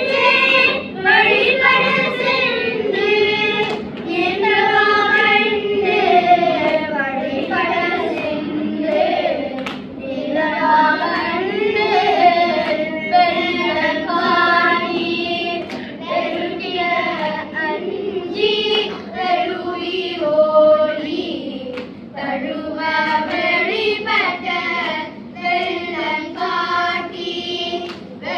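A group of children singing a Tamil devotional hymn together in unison, the melody gliding and ornamented in Carnatic style.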